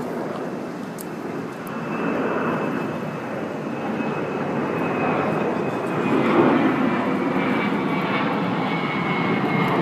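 Engine noise of a passing aircraft, growing louder, with a faint high whine that slowly falls in pitch.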